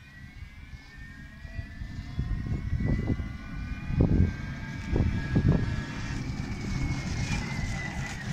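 The electric motor of a 48-volt solar- and battery-powered three-wheeler whines as it approaches and passes close by. The whine slowly rises in pitch and dips as the vehicle goes past near the end. Low thuds and rumbling run underneath, loudest about four seconds in.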